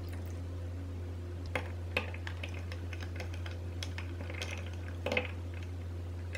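Light, scattered clinks of ice cubes in a tall glass of orange juice, then a long metal bar spoon stirring through the ice with a short cluster of louder clinks about five seconds in, over a steady low hum.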